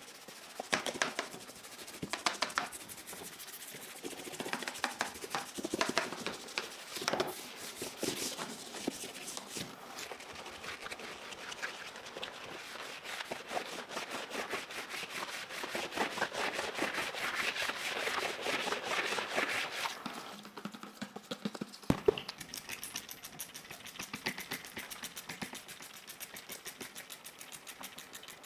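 Hand cleaning of a computer keyboard: scrubbing, rubbing and scratching with scattered light plastic clicks, the rubbing growing denser and louder in the middle, and one sharp knock a little after two thirds of the way through.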